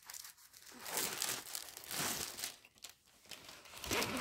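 Clear plastic protective film on a diamond painting canvas crinkling as it is handled and peeled back from the sticky canvas, in a few short rustling spells.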